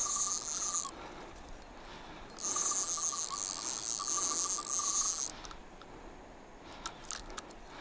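A fishing reel buzzing with a fast ratchet, in two spells of about one and about three seconds, while a hooked fish is played on the rod.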